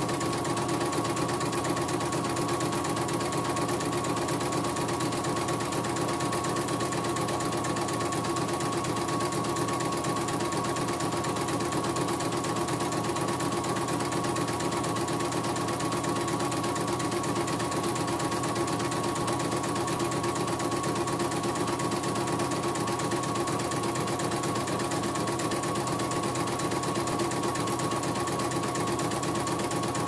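CNY computerised embroidery machine stitching a design, its needle mechanism running at a steady rapid rhythm. It runs smoothly, its rough, grinding rotation repaired.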